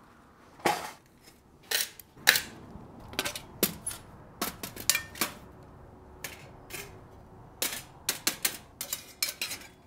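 Firebox folding metal camp stove being unfolded and set up: an irregular string of sharp metal clicks and clanks as its hinged panels swing open and snap together. The clicks bunch into a quick run near the end.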